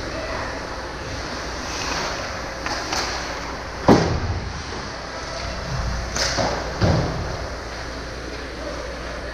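Ice hockey play heard in a rink: a steady wash of arena noise and skates on the ice, broken by sharp knocks of sticks and puck. The loudest knock comes about four seconds in and two lesser ones follow a few seconds later.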